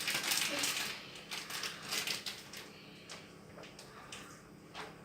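Rustling and scraping, then a few light clicks and taps, from ingredient packets and containers being handled.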